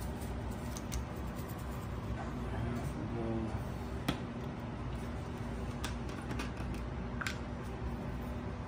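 Scattered light clicks and taps from handling seasoning containers and tuna steaks on a kitchen counter, over a steady low hum.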